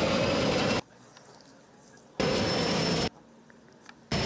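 Pilatus PC-6 Porter's turboprop engine and propeller running, a steady noise with a high whine over it. It comes in three short stretches that start and stop abruptly, with much quieter outdoor sound between them.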